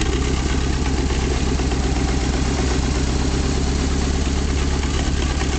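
Chrysler LH-318 V8 engine of a Hobart G600 engine-driven welder running steadily.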